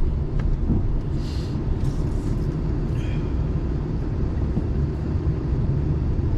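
Steady low rumble of road and engine noise inside a moving pickup truck's cab, with brief higher hiss about a second in and again around three seconds.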